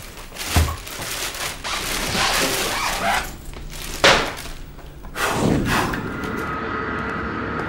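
Film sound design: a low thump, noisy whooshing swells and a sharp hit about four seconds in, then a steady sustained tone from about six seconds in.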